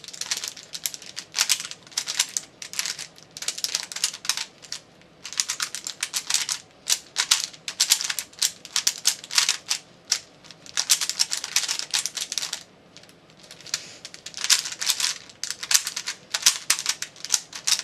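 Rubik's brand 3x3 cube being turned fast during a speedsolve: rapid plastic clicking and clacking of the layers in bursts, with short pauses between them.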